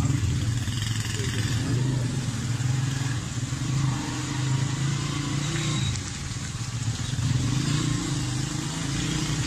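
Several motorcycles riding slowly in a group, their engines running with a low note that rises and falls a little with the throttle.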